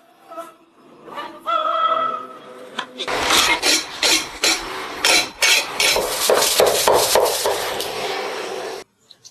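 A kitchen knife being honed against the unglazed foot ring of a ceramic bowl: a loud run of quick rasping strokes that starts about three seconds in and stops abruptly near the end.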